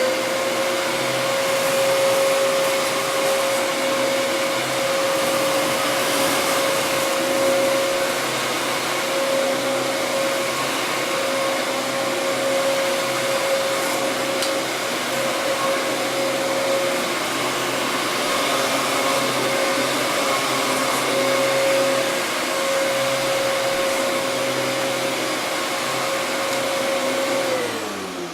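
Vacuum cleaner motor running at full speed with a steady whine over a rush of air, winding down near the end.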